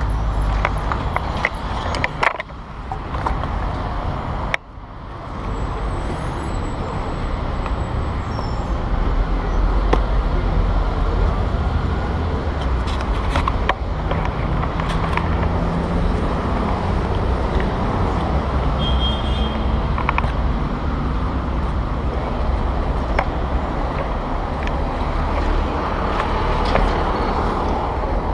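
Road traffic passing at a busy city intersection, a steady rumble of car and truck engines. A few knocks and brief dips come as the camera is handled.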